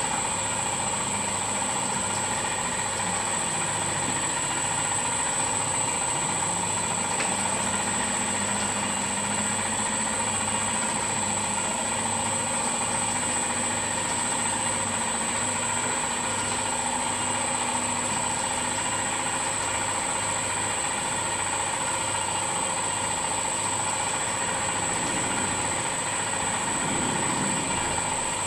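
Boutelje Honey Auger grinder running steadily, chewing through blocks of crystallised honey in its steel trough, with a constant high whine over an even low mechanical pulse.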